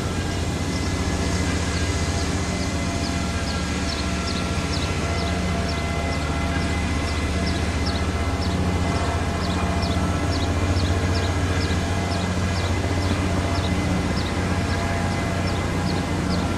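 A motor running steadily with a low, even drone, and short high falling chirps repeating two or three times a second above it.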